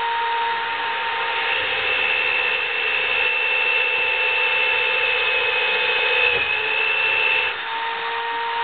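Half-inch corded hand drill, clamped in a homemade drill press, running with a steady whine. From about a second and a half in until near the end the bit is fed down into the wood: a higher cutting tone rides over the motor, which wavers under the load, then drops away as the bit comes free.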